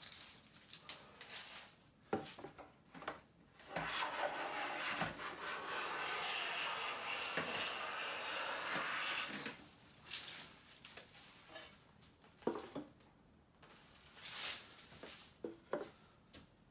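Siegley StS #7 bench plane taking a long shaving along a pine board: a steady hiss of the cutter for about five seconds in the middle. Scattered short knocks and taps come before and after it.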